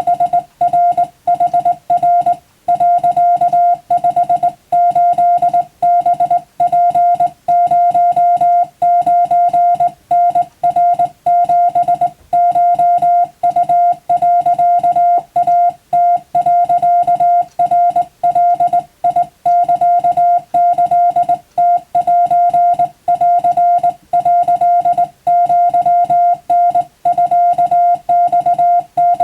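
Japanese wabun Morse code: a single steady tone of about 700 Hz keyed on and off in short dots and longer dashes, with brief gaps between characters, sending practice telegram text.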